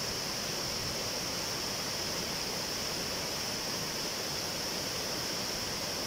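Muddy floodwater of a stream in flash flood rushing over rock rapids, a steady, unbroken rush of water, with a steady high-pitched drone above it.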